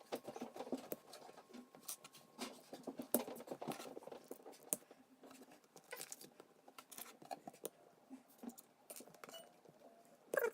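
Plastic Lego pieces clicking and rattling as they are handled, searched for and pressed together: many sharp, irregular clicks with light scraping between them.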